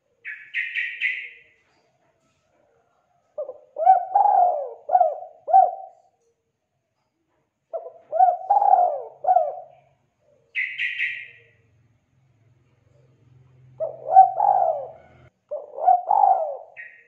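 Spotted dove cooing: four phrases of several low coo notes each, the first about three seconds in. Short, higher-pitched chirps come at the start, again about ten seconds in, and at the end.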